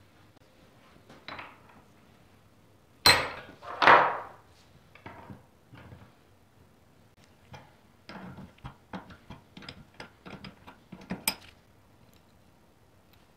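Metal workshop handling at a bench vise: two loud metal clanks with a short ring about three and four seconds in, then a run of light clicks and ticks as a spanner is worked on the nut of a motorcycle fuel tap held in the vise, ending in one sharper click.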